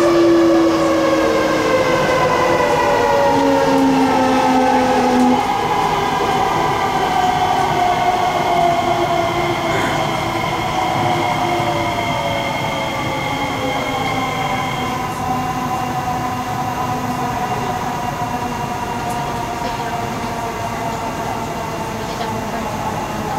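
Kawasaki-CRRC Sifang C151C metro train's IGBT-VVVF traction inverter and motors whining in several tones that glide steadily down in pitch over wheel and running noise inside the carriage, as the train slows for the station. The highest tones fade out about two-thirds of the way through.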